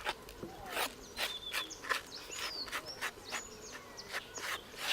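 Rural outdoor ambience: birds calling with short gliding whistles, over an irregular run of short, sharp chirps or ticks every few tenths of a second.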